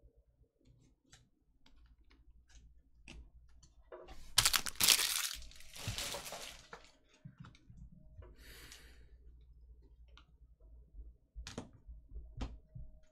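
Trading cards and their packaging being handled on a table: scattered light clicks and taps, and a loud crinkling rustle about four seconds in that lasts around three seconds. A shorter, softer rustle follows a couple of seconds later, then a few sharp clicks near the end.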